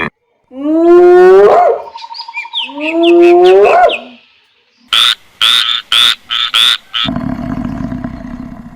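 A run of different animal calls: two long pitched calls that each rise at the end, then six short, sharp calls in quick succession, then a lower, rough, drawn-out call.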